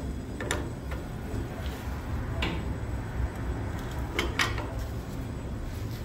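Pipe wrench clinking and scraping on threaded steel pipe fittings as they are tightened, with a few sharp metal clicks: about half a second in, around two and a half seconds, and a close pair near four seconds. A steady low machinery hum runs underneath.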